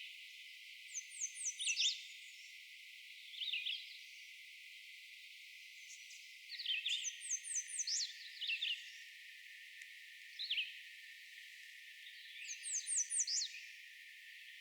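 American redstart singing an unusual song three times. Each song opens with a quick series of very short, high, down-slurred notes and ends on a lower note. Shorter single notes sound between the songs.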